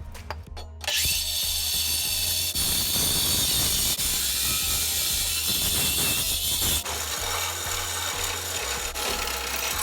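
Angle grinder with a diamond blade cutting through a steel exhaust pipe, starting about a second in and running steadily with a loud, high hiss; the sound shifts about seven seconds in.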